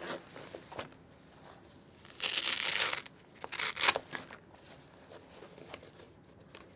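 YKK zipper being unzipped in two pulls: a longer rasping run about two seconds in and a shorter one a second later, with faint fabric handling around them.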